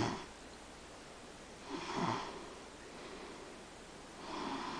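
Snoring: two rasping snores about two and a half seconds apart, one near two seconds in and one near the end, after a louder sound dies away at the very start.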